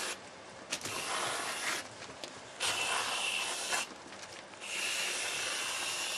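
Aerosol can of whipped cream spraying in three hissing spurts, the last the longest.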